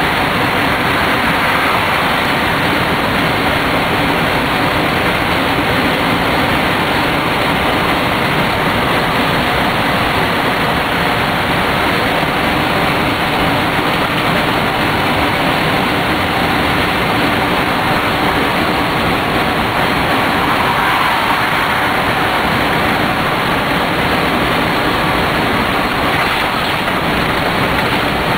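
Steady engine and road noise heard from inside a truck cab cruising along a highway, an even roar with no sudden changes.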